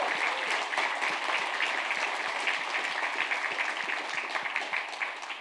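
Audience applauding: many hands clapping together, dying down toward the end.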